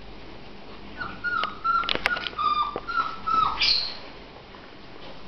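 Border collie puppy whining in a run of short high-pitched whimpers, each dropping in pitch at the end. The whimpers start about a second in and stop a little after the middle, with a sharp click among them.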